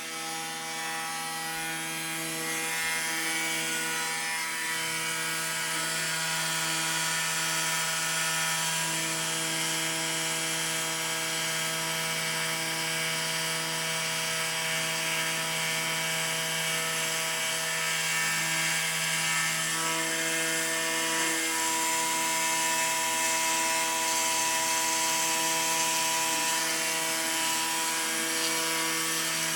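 Home-built CNC engraving machine running: a steady whine and hiss from its spindle and drive motors, with several tones that change pitch every few seconds as the axes move.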